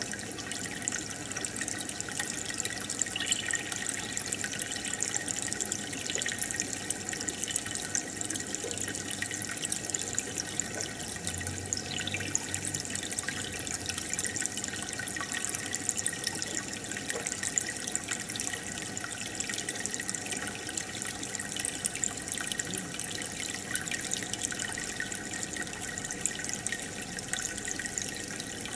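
Aquarium water bubbling and trickling steadily from the tank's aeration, with a constant patter of small bubble pops.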